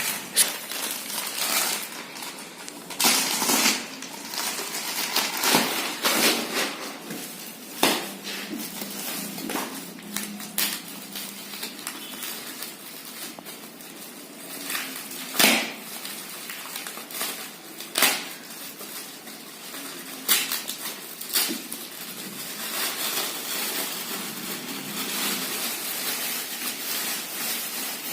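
A sleeping bag and its packaging being unpacked by hand: irregular rustling and crinkling, with scattered sharp knocks and clicks.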